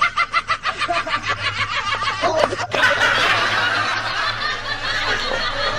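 A man laughing hard in rapid, even bursts, about six a second, then several voices laughing and calling out over one another.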